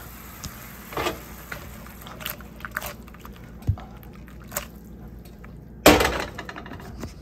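Mushroom and red wine sauce simmering and reducing in a skillet, with faint bubbling and scattered small pops and ticks. About six seconds in, a loud harsh scrape as the pan is shifted on the stovetop.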